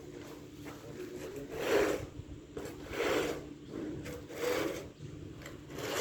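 Four rasping scrapes, evenly spaced about one every second and a half, each lasting around half a second.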